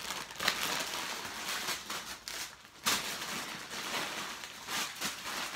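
Plastic candy bag crinkling as it is pulled open, then wrapped candies rustling as they are tipped out and spread across the bed, with sharp snaps about half a second in and near three seconds.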